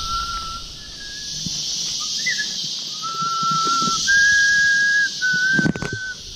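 A series of long, steady whistled notes stepping between a few pitches, over a constant high drone of rainforest insects. A short knock comes near the end.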